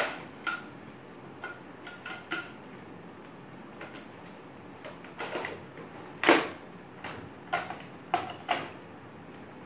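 Hard plastic parts of a Nerf Zombie Strike Scravenger blaster being handled and fitted together: scattered clicks and knocks, with a sharp one at the start, another about six seconds in, and a quick run of clicks near the end.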